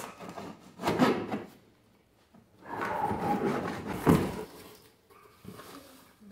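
Cardboard shipping box being cut open with a knife and handled: scraping and rustling of the cardboard and packing tape, with a sharp knock about four seconds in as the box is set down, then the flaps pulled open.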